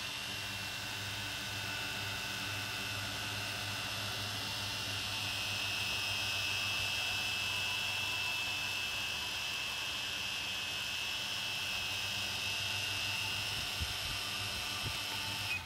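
Holy Stone HS110D toy quadcopter's four small electric motors and propellers spinning on the ground, a steady high buzzing whine that cuts off suddenly at the very end. It is being run up to check one bent propeller.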